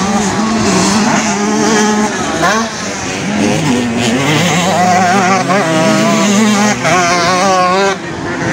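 Several vintage motocross bike engines revving on the track, their overlapping pitches rising and falling as the riders work the throttle.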